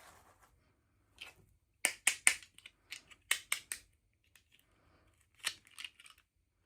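Packaging being opened by hand: a series of sharp snips and crackling clicks in three quick clusters, the loudest about two seconds in.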